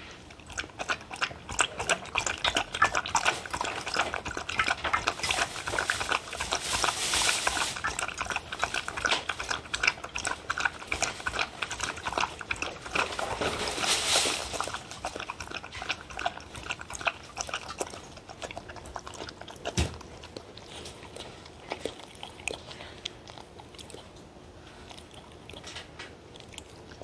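Dog lapping pet milk from a stainless steel tray, a fast run of wet laps with the tongue and muzzle now and then clinking the metal. The lapping dies down about two-thirds of the way through.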